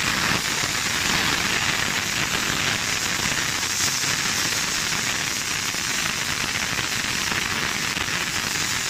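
Refrigerant gas hissing steadily out of the open end of a manifold gauge set's yellow charging hose as the compressor's refrigerant is vented. This is the system being emptied before the compressor is removed.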